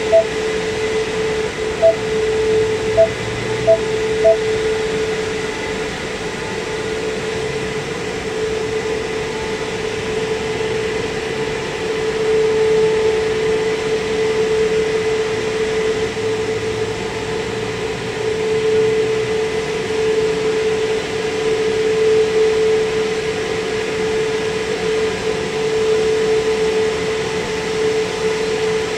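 Christ Aquatus Prime rollover car wash gantry running, a steady machine hum with a strong steady tone that swells and eases as the gantry travels along the vehicle. Several short beeps sound in the first few seconds.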